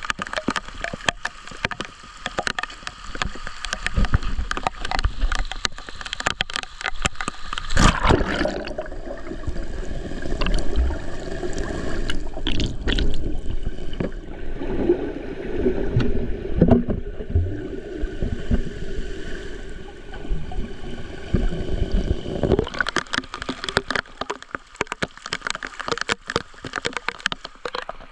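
Heavy rain pattering on the water's surface with splashing. About eight seconds in the sound turns dull and gurgling for about fourteen seconds, then the crackling rain patter returns.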